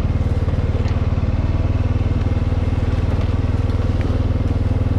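Four-wheeler (ATV) engine running at a steady speed, a low, rapid firing pulse, with a few faint clicks over it.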